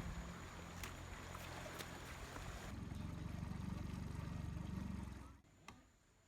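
A boat's motor running steadily as a low hum, which grows louder about three seconds in and then cuts off suddenly shortly before the end.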